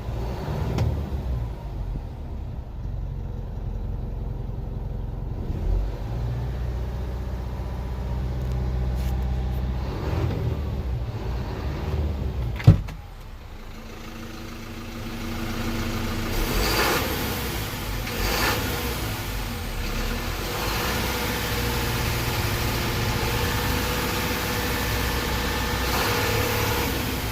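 Mitsubishi Fuso Canter's 4M50 four-cylinder diesel engine running steadily, the engine being checked for a clattering, knocking abnormal noise (パカパカ、カタカタ). A single sharp click about halfway through.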